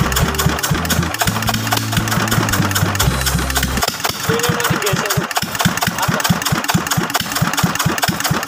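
Dongfeng S195 single-cylinder diesel engine running steadily after its rebuild, an even, rapid beat of firing strokes. Low steady notes, like a music bass line, sit under it for the first four seconds and then stop.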